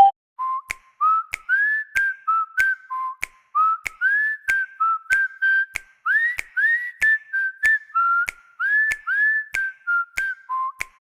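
Huawei phone ringtone: a whistled melody of short notes, most of them sliding up in pitch, each starting with a faint click, about two or three notes a second. It stops just before the end.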